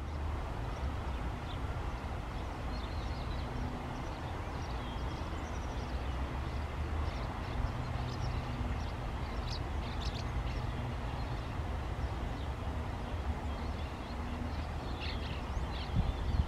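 Boeing 757 jet engines at takeoff power, heard from afar as a steady low rumble with a low hum while the airliner rolls and climbs toward the listener.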